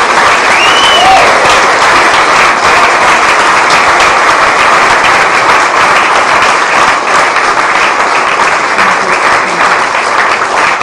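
Audience applauding, loud and steady, with a brief rising-and-falling cheer near the start.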